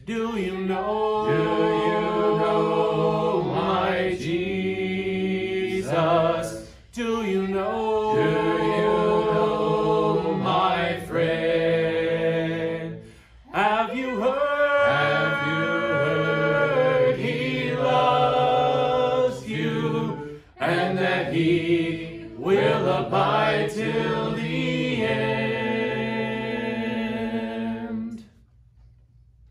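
Unaccompanied voices singing a hymn a cappella in sustained phrases with brief pauses between them. The singing stops about a second and a half before the end.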